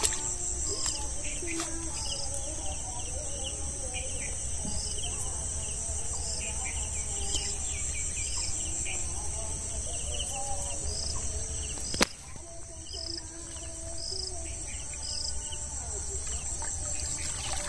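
Steady chorus of crickets and other insects, a constant high-pitched buzz, with faint bird chirps over it. A single sharp click comes about twelve seconds in.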